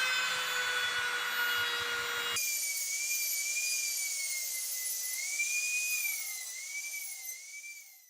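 A power tool working wood: a steady running hum with grinding noise, then an abrupt cut about two seconds in to a higher whine that wavers up and down in pitch and fades out near the end.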